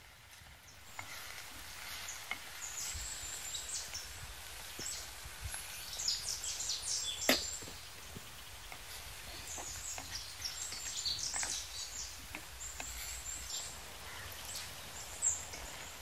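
Small birds chirping in scattered clusters of short high notes over a steady background hiss, with one sharp crack about seven seconds in.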